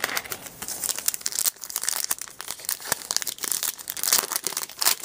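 The wrapper of a 2011-12 O-Pee-Chee hockey card pack crinkling and tearing as it is pulled open by hand, in a run of irregular sharp crackles.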